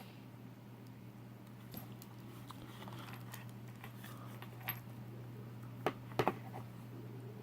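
Light handling noises from a small plastic soldering station and its parts being turned over and fiddled with: scattered small clicks and rattles, with a few sharper clicks about six seconds in, over a faint steady low hum.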